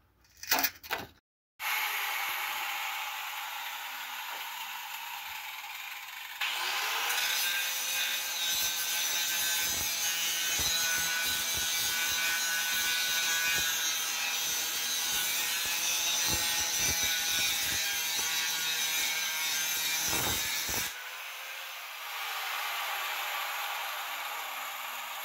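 Angle grinder with a cut-off wheel running, then cutting through the steel frame at the weld of the old rear spring hanger from about six seconds in until about twenty-one seconds. The cutting then stops and the grinder spins down with a falling whine.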